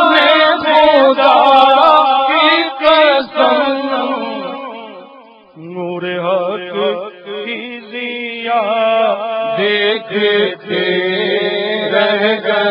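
Unaccompanied Urdu naat sung by a male voice, without instruments. The line fades out about five seconds in, then the singing resumes over a steady, lower held voice.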